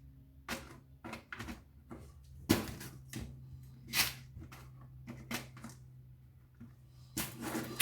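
Plastic parts of a dismantled computer keyboard clicking and knocking as they are handled, with two louder knocks about two and a half and four seconds in and a brief clatter near the end.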